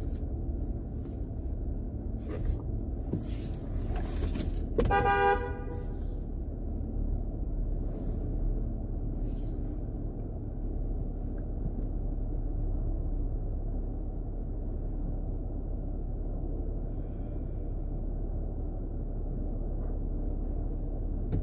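Jeep Wrangler's engine running steadily at low speed, heard from inside the cabin. About five seconds in, a car horn sounds once, briefly.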